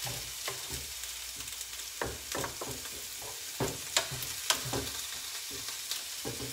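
Pork mince sizzling in a frying pan on a gas burner as a wooden spatula stirs it, a steady hiss broken by several scrapes and knocks of the spatula against the pan, the sharpest about four seconds in.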